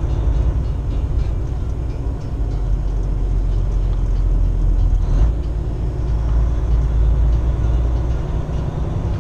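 Steady low rumble of a 2015 Kenworth T680's diesel engine and road noise, heard inside the cab while the truck rolls along the highway.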